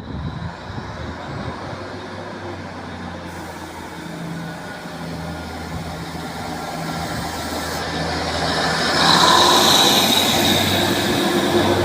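Class 150 Sprinter diesel multiple unit pulling away, its underfloor diesel engines working under power and growing steadily louder as it accelerates. About nine seconds in it gets louder still, with a high-pitched whine.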